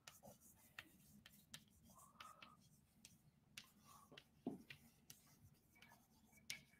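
Faint chalk tapping and scratching on a blackboard as words are written, a series of short, irregular clicks.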